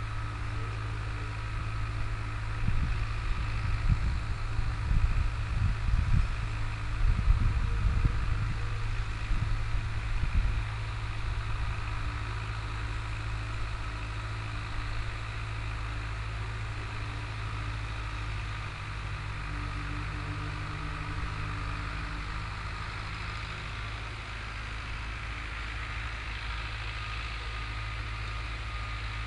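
Long 900 tractor's four-cylinder diesel engine running steadily while pulling a disk harrow. Irregular low thumps and rumbling come in from about three to ten seconds in.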